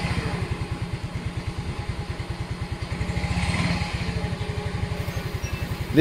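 A Yamaha Mio i scooter's single-cylinder four-stroke engine idling steadily, with an even, rapid beat.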